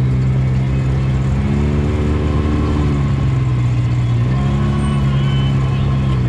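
Side-by-side UTV engine running while riding, its revs swelling and easing back twice.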